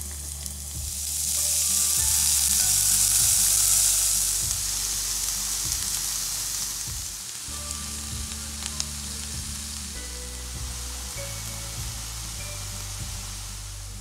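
Chopped garlic and cumin sizzling in hot oil in a stainless steel pan. The sizzle is loudest for the first few seconds, then eases off as chopped spinach is added and stirred in with a metal spatula.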